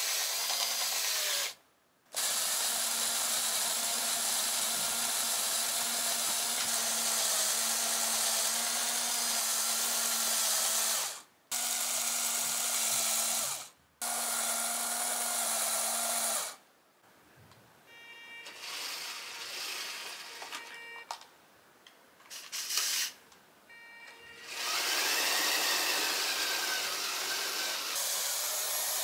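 Small Lego Technic electric motors whining steadily as they drive a Lego Technic train lift's mechanism, the pitch wavering slightly under load. The sound stops abruptly several times and is quieter and patchier for a few seconds past the middle.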